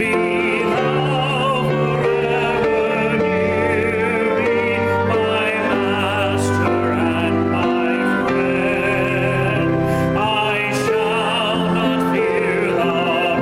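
Church congregation singing a hymn of response with instrumental accompaniment, long held notes with vibrato over sustained low notes.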